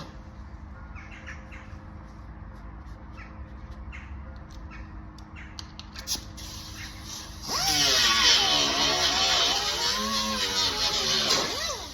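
Scattered light clicks and taps, then about seven seconds in a hand-held grinder starts working metal bodywork, loud, its pitch dipping and rising as it is pressed into the panel, with a brief drop near the end.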